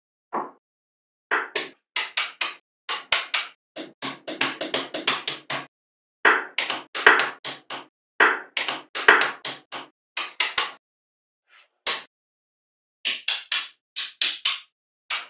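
Small magnetic balls clicking and clacking together as panels and strips of them are handled and snapped into place, in quick runs of sharp clicks broken by silent gaps.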